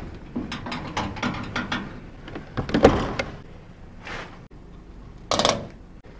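Gas pump nozzle and fuel filler cap being handled at a mini truck's filler: a run of clicks, rattles and scrapes, a louder knock about three seconds in, and two short rushes of noise later on.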